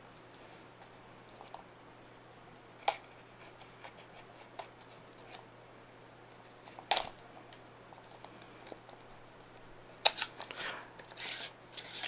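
A hobby knife slitting the clear seal stickers on a small paperboard box: a few separate sharp cuts and clicks, then the cardboard box scraping and rustling as it is pulled open near the end.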